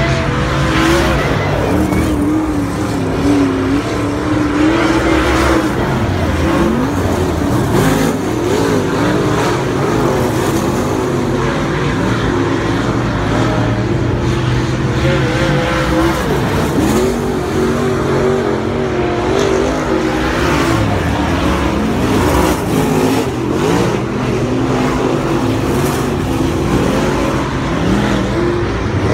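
Several dirt-track race cars running laps together, their engines rising and falling in pitch as they accelerate and back off around the oval.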